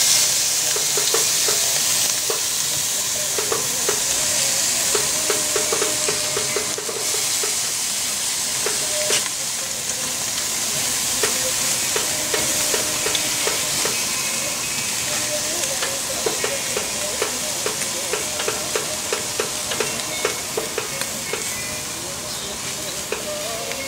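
A steady hiss with quick runs of small clicks or chirps throughout.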